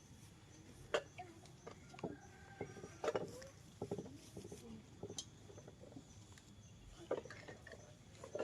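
Scattered light knocks and clinks, roughly one a second, some with a brief ring.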